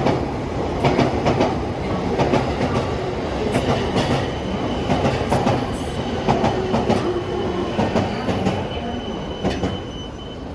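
Train wheels rolling over rail joints and points, with repeated clattering knocks and a thin steady wheel squeal from about three seconds in. The sound eases off near the end.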